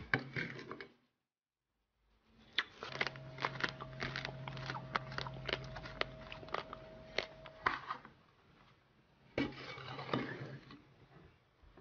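A small metal trowel clicking and scraping against a china plate as it works a wet grey paste studded with miniature bricks. After a short silence there are several seconds of quick sharp clicks over a steady low hum.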